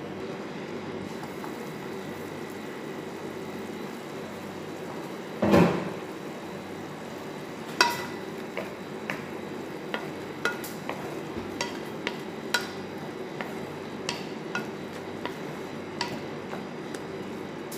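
Chicken simmering in a little water in a frying pan, a steady sizzling hiss. One loud knock comes about five seconds in. From about eight seconds a wooden spatula stirs the chicken, its strokes striking the pan in short ringing clicks every half second to a second.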